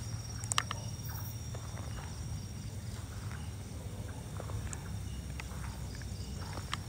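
A few scattered footsteps and scuffs on gravelly dirt, over a low steady rumble and a faint steady high-pitched whine.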